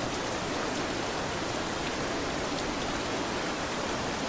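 Steady rainfall, an even hiss of rain with no breaks or distinct drops standing out.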